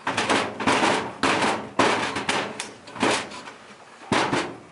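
Sheet-metal tabs of a 6-inch return-air top takeoff being bent over against the duct pan, giving a series of sharp bangs and rattles of thin metal, about eight in all.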